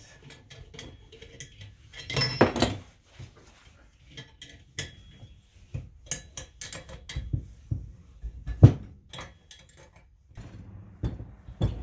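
Hand tools and steel parts clinking and knocking as the bolts holding an electric winch to its hitch-receiver mount are tightened: scattered clicks, a brief clatter about two seconds in and one sharp knock about three-quarters of the way through.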